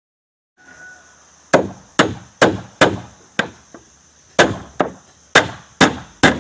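A hammer striking the wooden planking of a boat hull, a steady run of sharp blows about two a second, with a short pause and two lighter taps near the middle.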